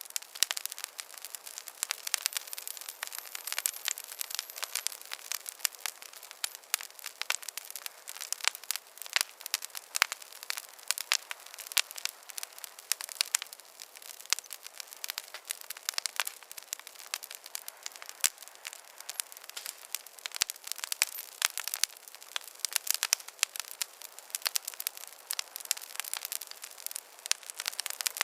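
Wood campfire crackling: many small, irregular pops and snaps, several every second, without a break.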